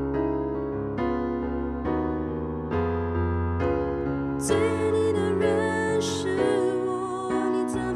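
Piano accompaniment playing a slow ballad, with chords struck about once a second. A woman's singing voice comes in about halfway through, with vibrato on the held notes.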